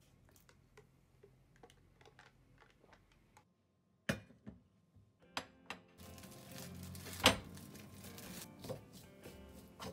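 Kitchen handling sounds: a ceramic plate and utensils knocking and clicking on a glass induction cooktop, with one loud knock about seven seconds in, then plastic wrap crinkling as it is peeled open. Faint light clicks in the first few seconds.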